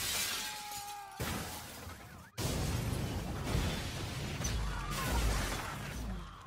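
Film sound effects: window glass shattering as a body crashes out through it, then about two seconds in a sudden explosion that carries on as a sustained blast of noise with a deep rumble.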